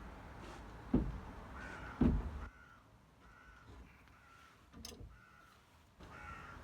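Two dull thumps about one and two seconds in as an over-tight, rusty brake caliper bolt is worked loose with a wrench. A crow caws repeatedly after them.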